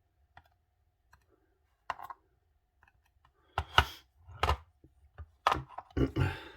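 Small metal lock parts being handled and set down on a hard work surface: a few faint clicks, then several louder knocks and a short clatter in the second half.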